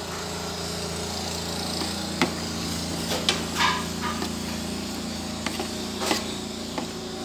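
Metal spoon stirring thick shrimp batter in a plastic box, with scattered clicks and scrapes of the spoon against the container, over a steady low hum.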